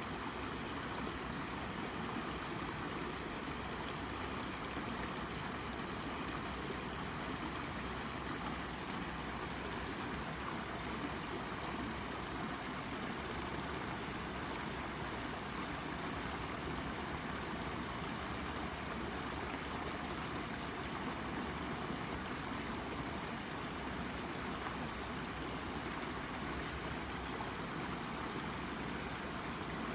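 Shallow brook babbling and gurgling over a rock, with a steady, even rush of water.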